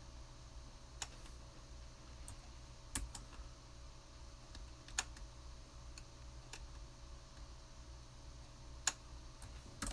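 A few scattered clicks on a computer keyboard, spaced a second or two apart, over a faint steady hum.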